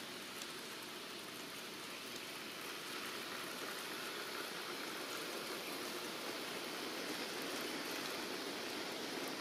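HO scale model freight train with Rivarossi diesel locomotives running on sectional track: a steady rushing of wheels on rails and motor hum, growing a little louder about three seconds in as the train passes close by.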